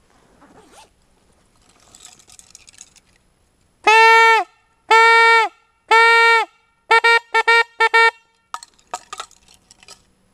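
A hunting horn blown close by: three long blasts, each dipping in pitch as it ends, then a quick run of about eight short toots. Faint rustling comes before the blasts and a few faint clicks after.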